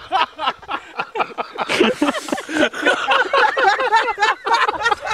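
Several men laughing hard together, with voices overlapping in quick repeated bursts.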